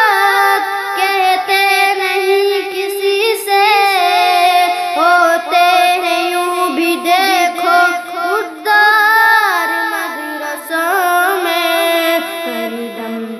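A solo voice singing an Urdu naat, drawing out long, ornamented notes that wind up and down in pitch.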